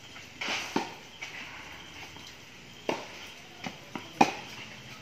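Tennis rally: a tennis ball struck by rackets and bouncing on the court, heard as a series of sharp pops a second or so apart, the loudest about four seconds in.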